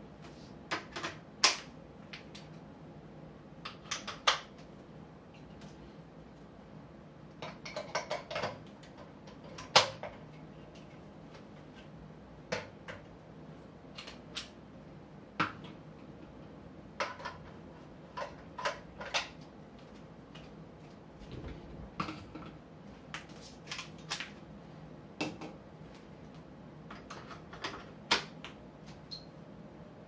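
Irregular sharp clicks and clacks of metal camera-support gear being handled: quick-release clamps and tripod heads snapping on and off and parts set down on a tile floor. A faint steady hum runs underneath.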